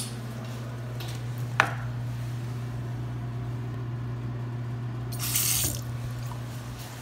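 Single-lever bathroom sink faucet running briefly: a short burst of water into the basin, about half a second long, about five seconds in. A steady low hum runs underneath, and a sharp click comes about a second and a half in.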